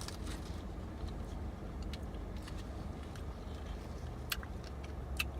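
Steady low rumble, with a few faint light clicks, the clearest near the end.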